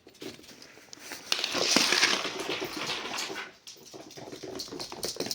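A gift bag rustling and crinkling as it is rummaged through, with a dog's sniffing and nosing mixed in. It is loudest about one and a half to three and a half seconds in.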